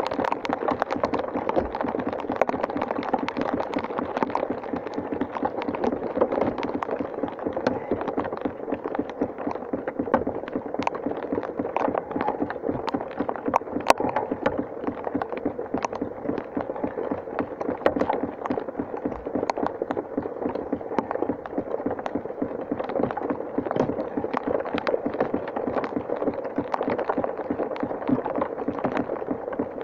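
Rain pattering steadily close to the microphone: a dense, even stream of small drop impacts.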